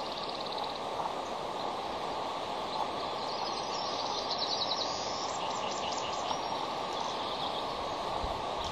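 A small songbird sings short, rapid, high trills a few times over a steady background rush of outdoor noise.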